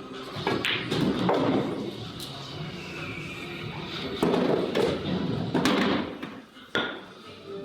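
Pool balls clacking during a shot: a series of sharp knocks as the cue tip strikes the cue ball and the balls collide.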